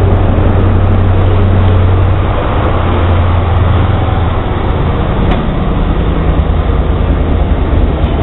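CrossCountry HST power car's MTU diesel engine running close by as the train pulls away, a loud deep hum; about halfway through the tone changes and pulses as the power car moves past and the coaches begin to roll by.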